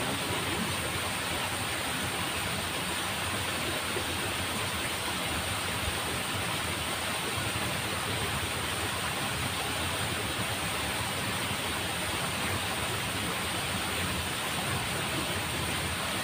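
Steady rush of water flowing along a small ditch, an even noise with no breaks.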